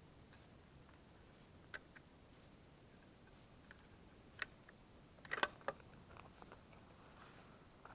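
A few faint mechanical clicks of a bolt-action rifle being handled and readied: single clicks near two seconds and four and a half seconds in, then a quick cluster of clicks around five and a half seconds in.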